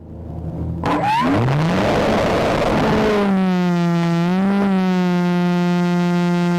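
Electric motor and propeller of an E-flite Inverza model plane spooling up, a whine rising in pitch about a second in, then holding a steady pitch with slight dips as the throttle is eased.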